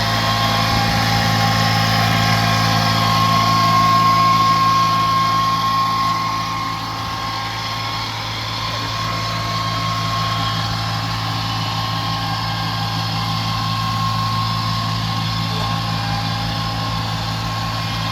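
Ransomes 723D riding mower's diesel engine running steadily at idle, with a steady high whine over the low engine note.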